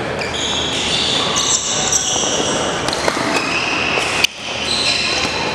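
Badminton doubles rally on a wooden sports-hall floor: court shoes squeaking several times as the players move, with sharp racket strikes on the shuttlecock.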